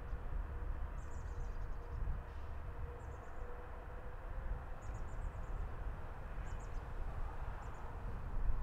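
Outdoor ambience: a steady low rumble with a faint hum, and short, faint high-pitched chirps every second or two.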